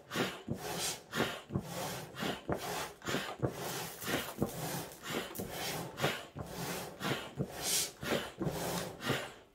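Foot-operated bellows air pump stepped on in a quick, even rhythm, pushing about two to three puffs of air a second through a hose to fan the charcoal in a barbecue grill.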